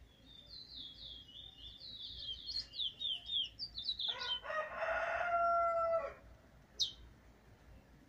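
A young, still brown-plumaged Trinidad bullfinch (chestnut-bellied seed finch) singing a quick run of high notes, each falling in pitch: an early attempt at song. About four seconds in, a rooster crows for about two seconds, the loudest sound here. Near the end comes one short, sharp chirp.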